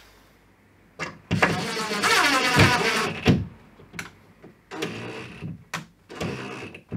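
Electric drill-driver driving screws through a flat TV wall bracket into a stud wall. There is one run of about two seconds, with the motor's pitch bending as the screw is driven, then two shorter bursts.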